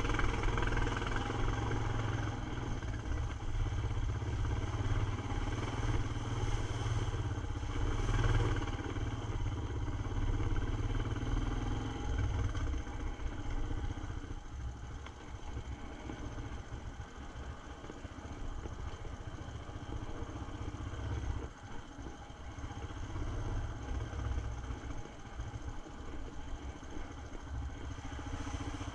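ATV engine running as the quad drives along a dirt trail, louder for the first dozen seconds and then quieter and more uneven as the throttle eases off.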